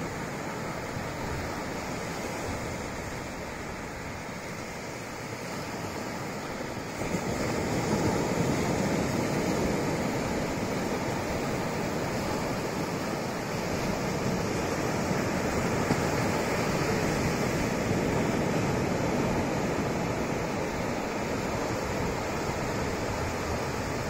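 Small ocean waves breaking and washing up a sandy beach: a steady rushing surf that grows louder about seven seconds in.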